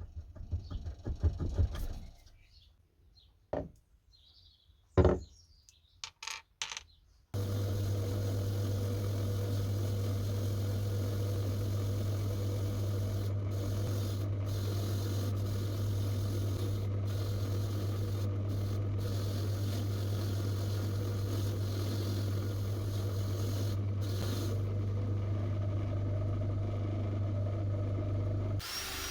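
A few scattered knocks and clatters of metal being handled, then about seven seconds in a powered wire wheel starts and runs steadily with a low motor hum, scouring the steel hammer head after paint stripping.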